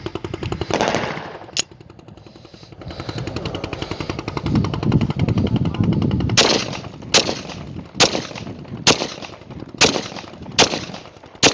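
Glock 17 9 mm pistol test-fired: a single shot about a second and a half in, then about seven shots at a steady pace, roughly one every 0.8 s, from about the middle on.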